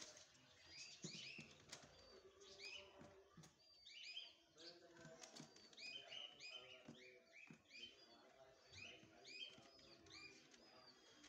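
Faint chirping of small birds, many short calls repeated rapidly and overlapping.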